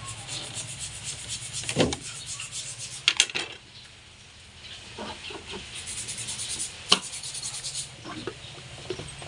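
Rubber air-intake hose and plastic air cleaner housing of an Isuzu D-Max being worked loose by hand for an air filter change: continuous rubbing and scraping. There are sharp plastic clicks or knocks about two seconds in, a quick double near three seconds, and one near seven seconds.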